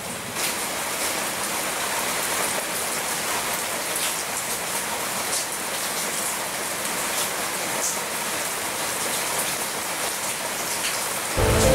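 Steady rain falling on leaves and wet ground, with separate drop hits now and then. Just before the end, electric piano music comes in.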